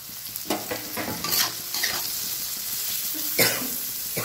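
Chopped onion and potato frying in oil in a kadhai, with a steady sizzle, while a metal spatula scrapes and stirs them against the pan several times.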